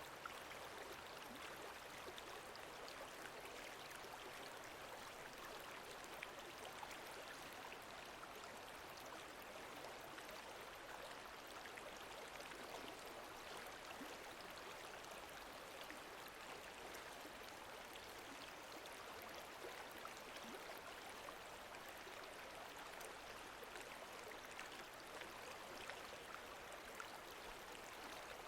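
Lake water lapping gently: a faint, steady wash of many small splashes.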